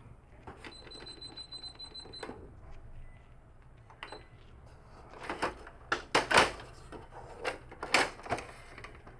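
Canon MF4450 laser multifunction printer starting up after being switched on: a high steady whine for about a second and a half, then a string of loud mechanical clacks.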